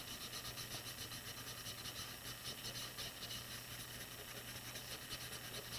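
Paintbrush scrubbing across watercolor paper in rapid, even back-and-forth strokes, a soft rhythmic scratching.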